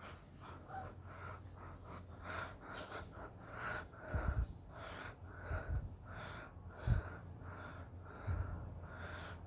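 Heavy, quick breathing close to the microphone in short rhythmic puffs. Under it runs the low steady purr of a Russian Blue cat being petted, with a few dull thumps partway through.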